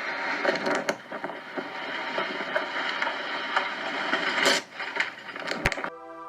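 Strong storm wind rushing, with scattered sharp knocks and cracks. About six seconds in it cuts suddenly to a sustained musical chord.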